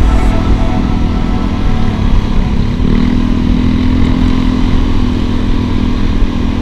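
Motor scooter engine running steadily at cruising speed, heard from the rider's seat over road and wind rumble; the engine note shifts slightly about three seconds in.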